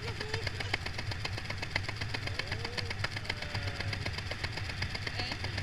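An engine running steadily at an even, idling pace.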